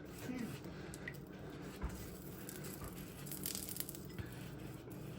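Melted butter being spread over freshly baked bread loaves: faint soft handling sounds with a few light knocks, over a low steady hum.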